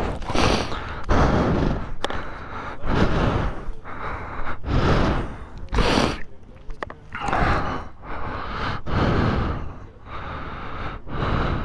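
A person breathing heavily close to the microphone, a loud rushing breath about every second.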